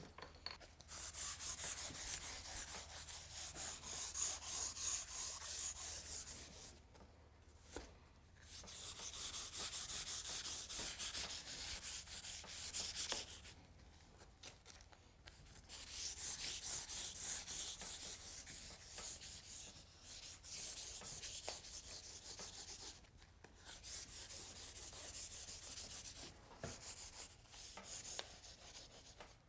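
A stick of soft charcoal rubbed rapidly across drawing paper, a scratchy rasp of many quick strokes that comes in spells of a few seconds with short pauses between, toning the sheet an even middle gray.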